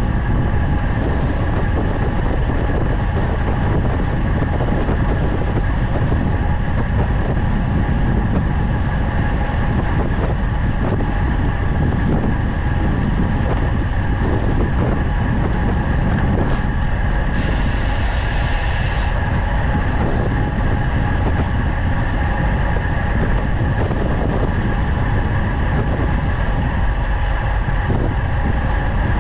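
Steady rush of wind on the microphone, with road noise, from a road bike descending at speed. About two thirds of the way through, a brighter hiss is heard for about a second and a half.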